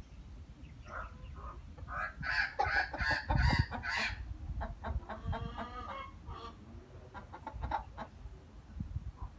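Mother hen clucking: a rapid run of short clucks, loudest about two to four seconds in, then a longer call and scattered clucks.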